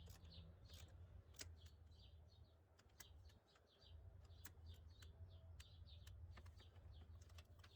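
Near silence: faint bird chirps in the background, with a few scattered faint clicks.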